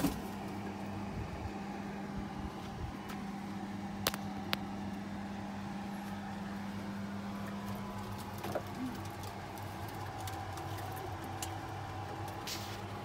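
Steady low hum of a running machine, with two sharp clicks about four seconds in.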